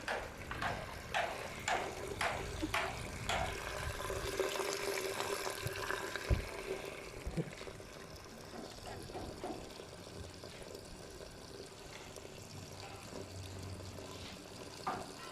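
Water pouring and splashing into a container, with a run of short splashes over the first few seconds settling into a steadier flow.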